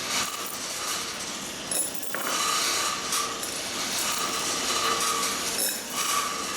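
Hand-operated bridge crane's chain hoist lowering a heavy load under its brake: a steady mechanical clatter of chain and ratchet, with a high tone that comes and goes every second or so.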